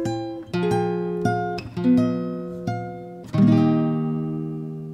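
Outro music on guitar: a few plucked and strummed chords, the last one left to ring and slowly fade.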